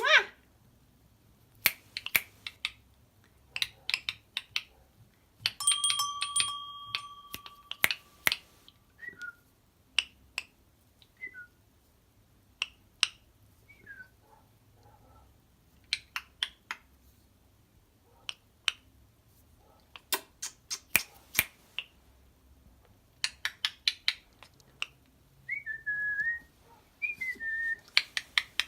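Rainbow lorikeet making sharp clicking noises in quick clusters, with a few short falling chirps and one steady whistled note lasting about two seconds, about six seconds in.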